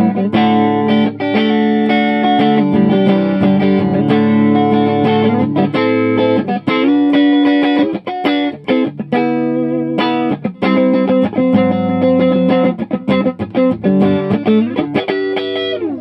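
Electric guitar on its neck pickup played clean through a modified Bell & Howell Filmosound tube amp, tone knob near the middle and presence circuit off: a run of strummed chords and single notes that stops at the end.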